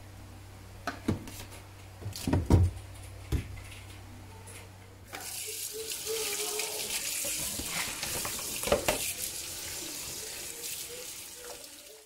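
Plastic fridge organizer baskets knocking a few times as they are pulled from the crisper drawer. From about five seconds in, a tap runs water steadily over the plastic baskets in a sink as they are rinsed, stopping at the end.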